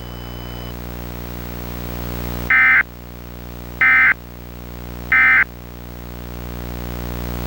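Three short bursts of EAS (SAME) end-of-message data tones, a brief digital warble each, about 1.3 s apart, marking the end of the alert. Under them runs a steady low buzzing hum that slowly grows louder.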